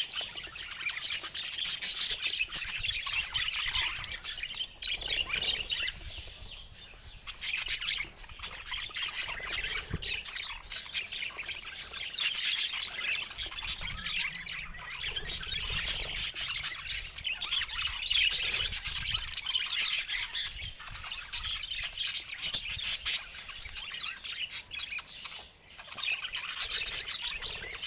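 Budgerigar chattering: rapid, continuous high chirps and warbles.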